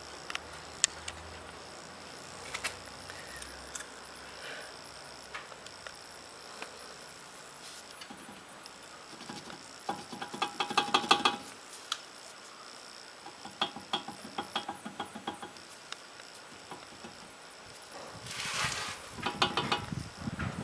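Short bursts of rapid metallic rattling from a car's brake caliper over rough pavement, the loudest about halfway through and again near the end, over a steady hiss. The owner suspects play in the caliper from dried-out, worn slide-pin grease.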